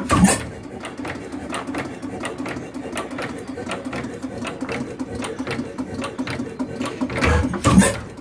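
4 HP Domestic hit-and-miss gas engine running, with a fast, even clicking over a steady low hum. Heavier beats, its firing strokes, come just after the start and twice near the end.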